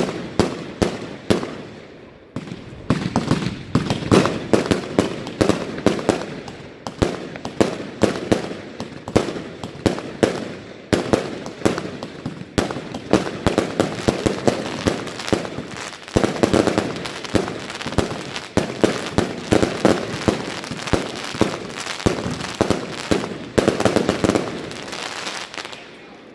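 Consumer firework batteries firing a rapid run of shots and bursting bangs, several a second, that dies away near the end.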